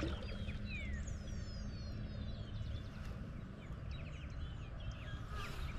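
Wild birds calling: several falling whistled notes and quick chirping runs, over a steady low rumble.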